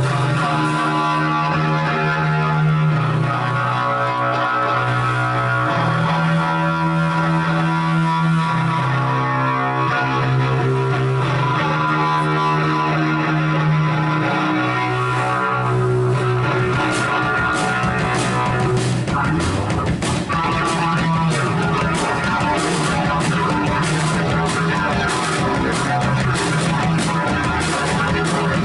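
A live rock band playing loud guitar-driven music. Slow, held guitar chords change every second or two, then about halfway through the drums come in with fast, steady cymbal hits.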